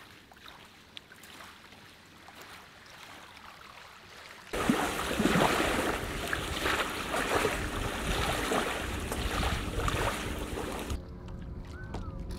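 Lake ambience: soft water lapping at first, then several seconds of louder splashing waves and wind, and near the end a boat motor's low steady hum with a short bird chirp.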